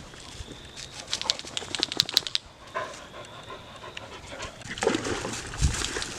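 A dog panting, with a run of quick clicks and rattles about a second in.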